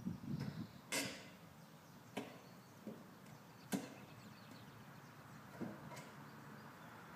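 A handful of sharp, separate knocks and clicks, the loudest about a second in and again near the four-second mark, over faint background noise.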